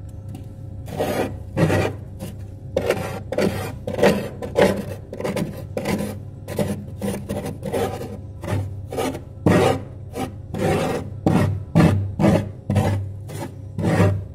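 Metal spoon scraping and scooping thick freezer frost: a run of gritty rasping strokes, roughly two a second, over a steady low hum.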